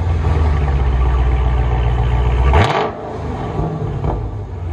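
Dodge Challenger Scat Pack's 6.4-litre HEMI V8 idling through an exhaust with the mid mufflers deleted, Dynomax Race Bullet resonators and the stock valved rear mufflers. It runs at a loud, steady idle, then gets one quick throttle blip about two and a half seconds in and settles to a quieter idle.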